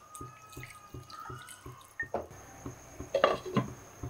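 Water poured into a pan of chicken curry, then a glass pan lid clattering down onto the rim with several sharp clinks about three seconds in.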